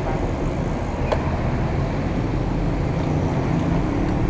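Wind buffeting and road rumble on the microphone of a handlebar camera on a moving bicycle, with one sharp click about a second in.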